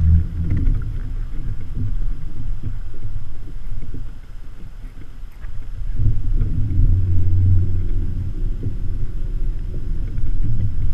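Muffled low rumble of a kayak and its gear being handled on the water, with a few light knocks; it swells a little past the middle.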